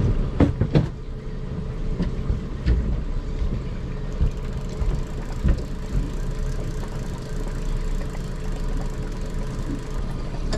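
Honda outboard motor running steadily at trolling speed, a low even hum. A few knocks and clicks from fishing gear being handled on the boat, the loudest in the first second.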